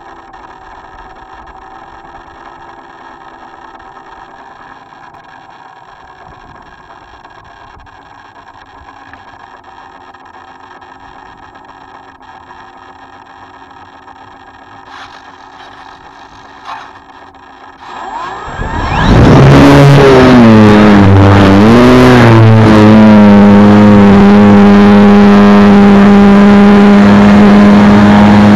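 Electric motor and propeller of a Multiplex FunCub RC plane, heard from its wing: a quiet steady hum, then about two-thirds of the way through the throttle opens and the prop spins up to a loud steady drone for takeoff, wavering in pitch for a few seconds before it settles.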